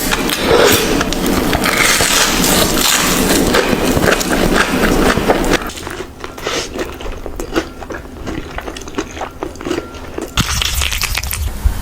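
Close-miked eating sounds: biting and chewing with dense crackling and rustling for about the first half, then quieter chewing with scattered small clicks, and the crackling picks up again near the end.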